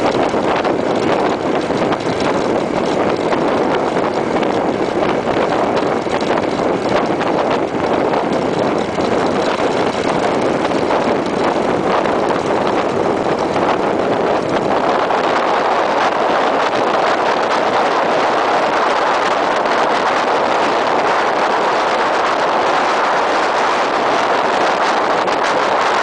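Steady rush of wind over a motorcycle-mounted camera at road speed, with the bike's engine and tyre noise mixed in. About halfway through the rush shifts higher in pitch.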